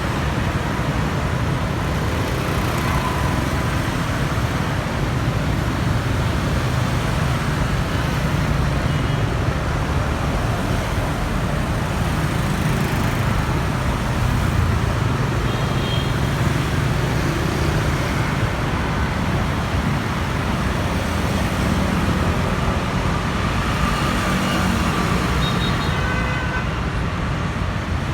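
Steady city street traffic: the continuous rumble of passing vehicle engines and tyres, with a few short horn toots here and there.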